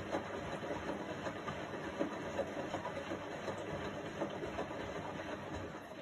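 Indesit front-loading washing machine in a wash cycle: the drum turning with water and laundry sloshing inside, a steady churning broken by small irregular splashes.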